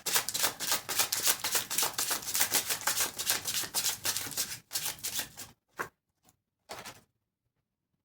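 A tarot deck being shuffled by hand: a fast, continuous patter of cards flicking against each other for about five and a half seconds, then two short separate card sounds.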